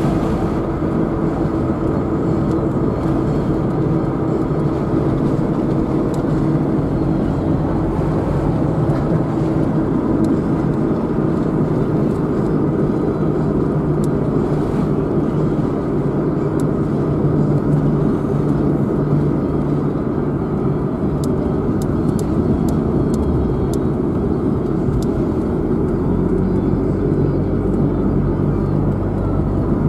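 A car driving along, with steady engine and road noise.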